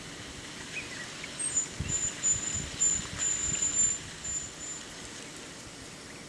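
Outdoor natural ambience: a high, thin trill comes in broken pulses for about three seconds, with a few faint chirps. Low rumbling thumps through the middle are the loudest part.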